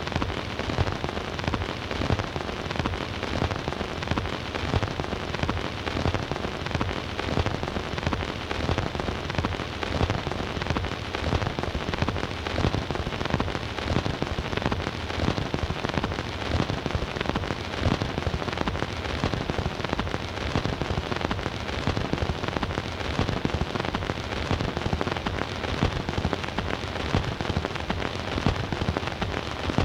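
Surface noise of a 78 rpm shellac record's lead-in groove on a record player: dense, steady crackle over hiss, with no music.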